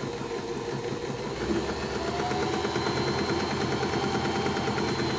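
Janome My Style 20 sewing machine running steadily, its needle stitching a zigzag (length 2, width 2) through fabric.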